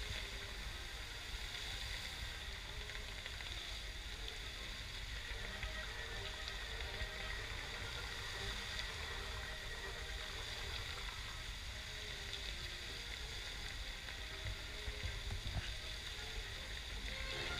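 Musical fountain's water jets spraying and splashing in a steady hiss, with the show's music faint; the music comes back up near the end.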